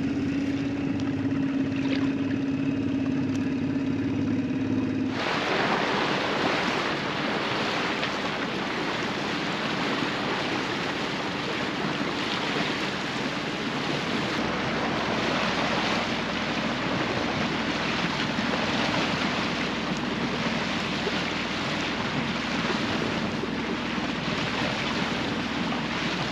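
A small outboard motor running at a steady pitch for about five seconds. It then cuts to steady wind noise on the microphone and water rushing past a sailboat's hull under way.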